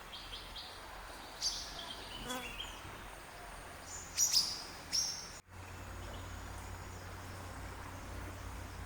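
Several short, high bird chirps over a steady outdoor background. After a brief dropout about five and a half seconds in, only the faint background with a low hum remains.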